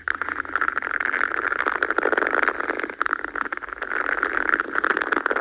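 Cups worked close to an ASMR microphone, giving a dense, steady crackling scratch.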